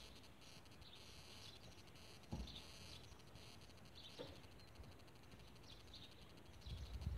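Near silence: faint field ambience with small high chirps of birds or insects coming and going, and two soft low bumps about two and a half and four seconds in.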